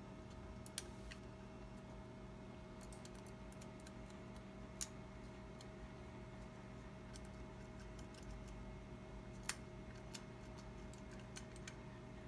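Light clicks and ticks of plastic parts being handled: a 3D-printed PLA cylinder head with spring-loaded valves turned over in the hands, with a few sharper clicks among scattered lighter ones. A steady faint hum runs underneath.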